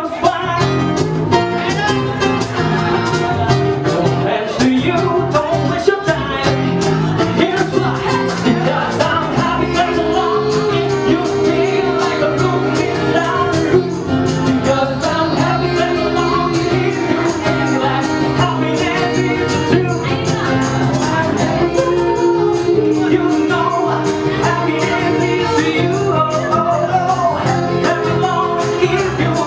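Live acoustic band playing an upbeat song, a woman and a man singing into microphones over acoustic guitar, bass and hand percussion with a steady beat.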